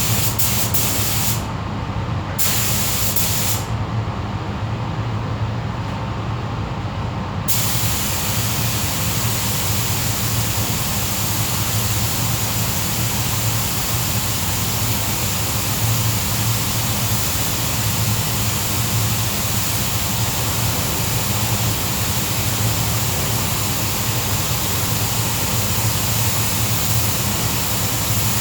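Pneumatic spray gun hissing as it sprays primer: a few short trigger bursts, then a steady spray from about seven seconds in, over a steady low hum.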